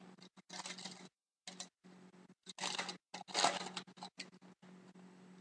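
Trading cards being handled, flipped and slid against one another in a few short rustling bursts, the loudest about three and a half seconds in.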